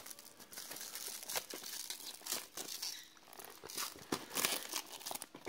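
Black plastic wrapping around a small box crinkling and rustling in the hands as it is pulled open, with irregular crackles and a few tearing sounds.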